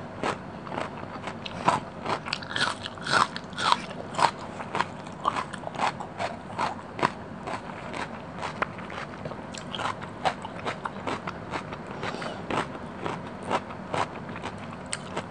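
Close-miked eating sounds of fish curry and basmati rice eaten by hand: wet chewing and mouth clicks, with fingers squishing rice and curry on the plate. A steady run of sharp, irregular clicks, a few a second, busiest in the first few seconds.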